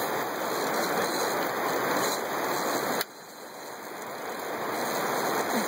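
Steady rush of river water running past a drift boat. It drops sharply about three seconds in, then slowly builds back up.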